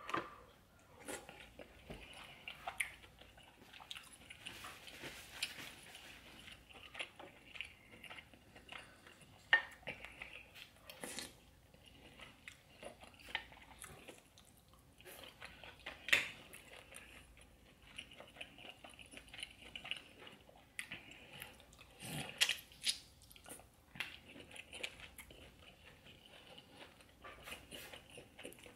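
Close-miked chewing and wet smacking of someone eating a buttery seafood boil, with scattered sharp clicks and taps throughout.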